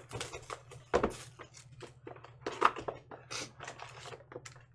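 Hands opening a cardboard trading-card hobby box and pulling out its foil-wrapped packs: irregular rustling, crinkling and scraping of cardboard and foil, with a sharp knock about a second in and another shortly before the middle.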